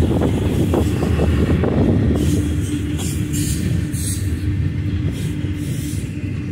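Double-stack intermodal container train rolling past: a steady low rumble of wheels on rail, with sharp rattles and clicks through the middle.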